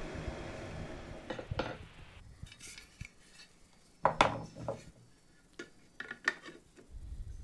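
Silma 250s Super 8 projector running with a steady hum until it stops about two seconds in. Then come sharp metal clicks and clacks as its side cover is handled and clipped back on, the loudest about four seconds in.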